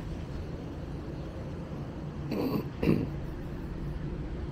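Steady rumble of city street traffic. About two and a half seconds in, two short voice-like sounds come in quick succession, and the second is louder.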